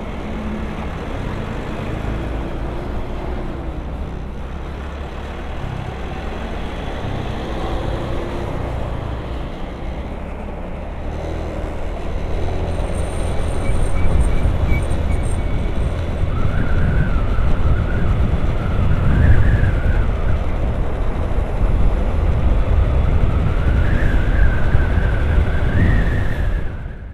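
Wind rushing over the microphone and a Honda Vario 150 scooter running through traffic, getting louder about halfway through as the ride picks up speed. A wavering whine comes in during the second half.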